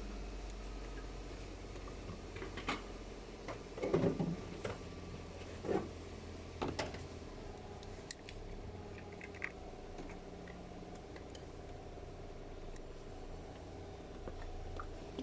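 Scattered light knocks and clicks from hands working on a car in a workshop, about five of them in the first seven seconds, over a steady low hum.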